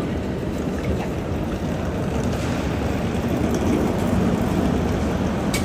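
Steady low rumbling background noise, getting slightly louder a little past halfway, with no distinct events.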